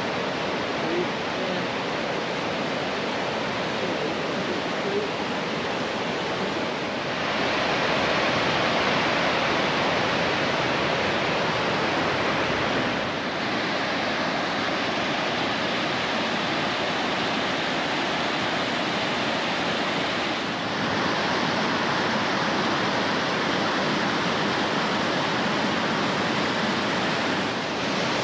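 Steady rush of whitewater in Big Creek's rapids and Mouse Creek Falls in full winter flow, an even hiss with no let-up. The loudness jumps abruptly a few times, up about seven seconds in and again about twenty-one seconds in.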